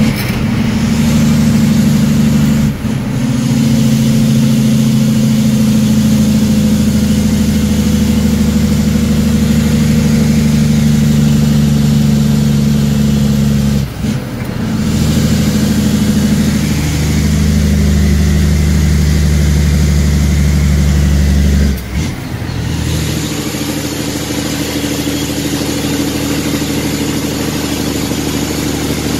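Heavy truck's diesel engine running under load, heard from inside the cab. The engine note breaks off briefly three times, near the start, about halfway and about two-thirds through, as gears are shifted, and after the last shift it runs a little quieter.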